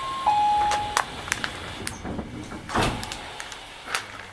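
Door chime of a Y500-series commuter train at a station stop: two falling tones ending about a second in. Clicks and knocks follow, with a louder thud about three seconds in, over the rushing noise let in through the open sliding doors.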